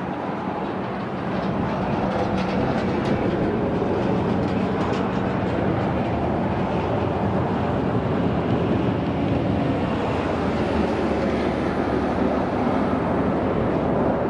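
Military aircraft engines running, a loud steady rumble with a few faint steady tones.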